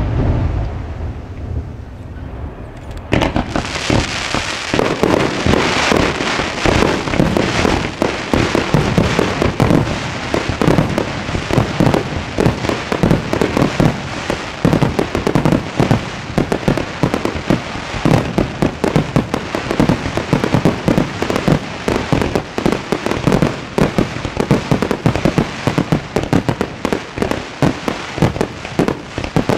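Fireworks display: the low rumble of a large shell burst dies away at the start, then from about three seconds in comes a dense, continuous barrage of rapid crackling pops and bangs.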